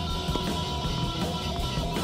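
Rock music with electric guitar and a steady beat.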